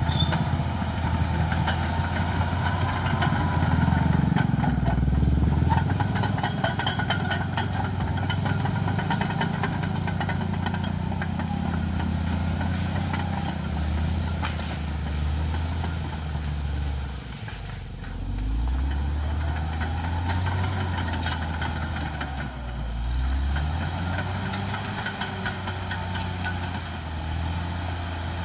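Caterpillar D6R XL bulldozer's diesel engine running under load, its note rising and falling as it pushes. A run of sharp cracks and clatter is heard in the first third. The engine dips briefly about two-thirds of the way through, then picks up again.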